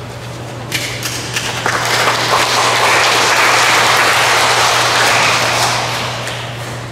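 Congregation applauding: a few scattered claps at first, swelling into full applause about two seconds in, then dying away near the end, over a steady low hum.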